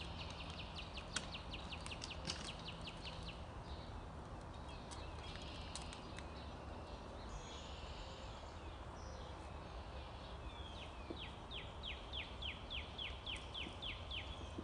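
A songbird singing two trills, each a quick series of short whistled notes that slide downward, about five notes a second. The first comes at the start, the second about eleven seconds in. A steady low background hum runs underneath.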